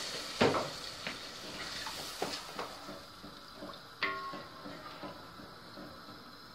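Wooden spoon stirring rice and water in a pot, with several light knocks of the spoon against the pot over the first four seconds and a faint hiss fading early on.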